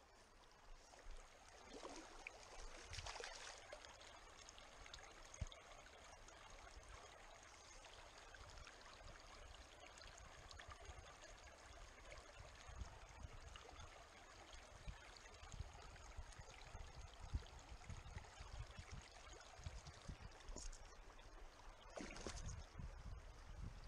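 Shallow, clear stream flowing: a quiet, steady trickling of water, with scattered soft knocks and low rumbles close to the microphone that grow busier near the end.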